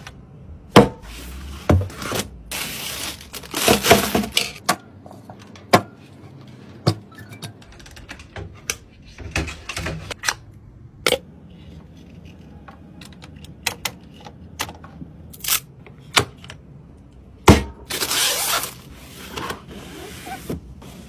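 Hands handling and fitting computer parts: scattered sharp clicks and knocks, with longer scraping or rustling stretches twice.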